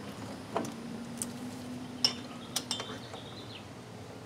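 Drum brake hardware (brake shoes, star adjuster and springs) being handled and fitted by hand: a few short metallic clicks and clinks, scattered through the first three seconds.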